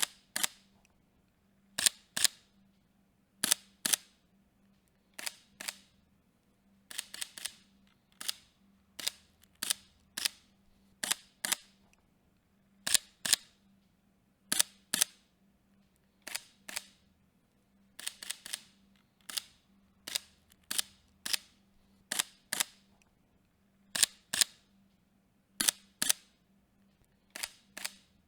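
Sony A7 III mirrorless camera's shutter firing again and again. Most shots come as close double clicks a second or two apart, with a few quick bursts of three to five.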